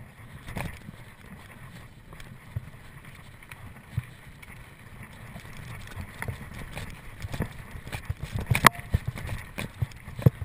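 Mountain bike clattering over a rough trail: irregular knocks and rattles from the bike and tyres over a low rumble. The rattling gets busier in the second half, with one sharp crack late on.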